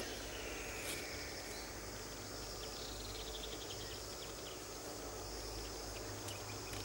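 Outdoor ambience of insects chirping steadily, with a falling bird-like call about half a second in and a quick run of high ticks around three seconds in, over a low steady hum.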